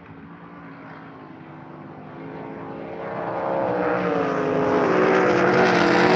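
Racing boat engine running on the lake, getting steadily louder over the seconds, its pitch wavering and dipping a little near the end.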